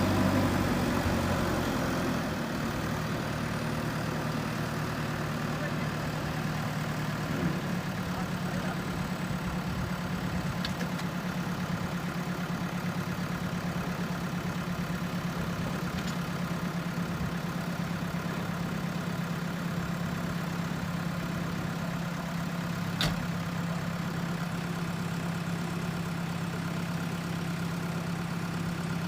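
JCB 3DX backhoe loader's diesel engine easing down from higher revs in the first two seconds, then idling steadily. A short sharp click comes twice, at about a quarter and about four-fifths of the way through.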